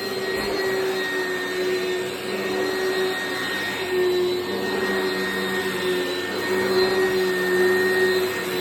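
Oreck XL Commercial upright vacuum running steadily, with a constant whine over the motor and brush-roll noise. The owner puts the noise down to something stuck in the brush roll, not the motor.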